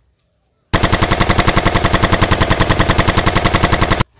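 Automatic-rifle gunfire sound for a toy M4 being fired, a fast, even burst of about ten shots a second. It starts about a second in and cuts off abruptly just before the end.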